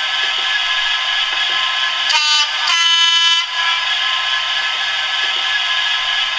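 Bachmann DCC sound decoder in a Class 66 model locomotive, playing the idle of the EMD two-stroke V12 diesel through the model's small speaker, thin with little bass. About two seconds in it sounds the two-tone horn: a short high note, then a slightly longer lower note.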